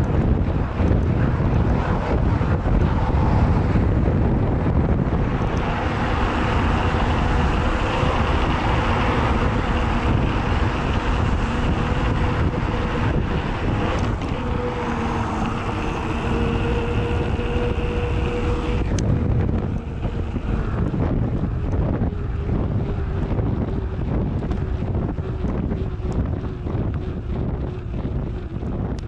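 Wind buffeting the microphone of a bike-mounted camera while a mountain bike rolls along, with heavy low rumble throughout. From about six seconds in, a steady droning hum with a few pitches sits over the noise; it stops about nineteen seconds in, leaving a fainter, lower hum that slowly sinks in pitch.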